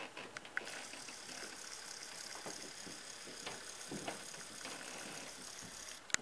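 HO-scale model passenger train running along the track: a steady whir of motor and wheels with scattered light clicks. The whir starts about a second in and stops shortly before a sharp click near the end.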